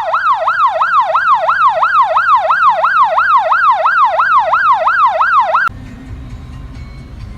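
Electronic siren (8200B siren unit) sounding a fast yelp tone, wailing up and down about three to four times a second, then cutting off suddenly a little over five seconds in.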